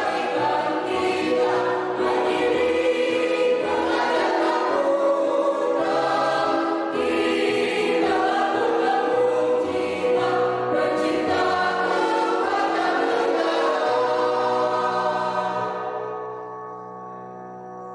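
Mixed choir of women and men singing in parts, ending on a long held final chord that fades away over the last couple of seconds.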